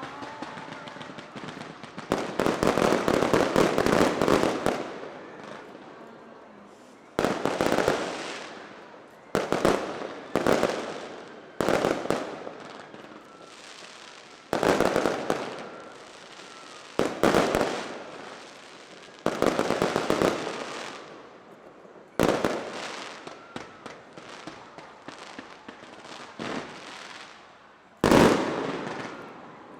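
Aerial fireworks bursting one after another: about ten sharp bangs, each followed by crackling that fades over a second or two, with the loudest burst near the end.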